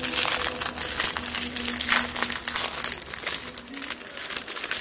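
Clear plastic bags of diamond painting crystals crinkling and rustling as they are handled and worked open, a continuous irregular crackle.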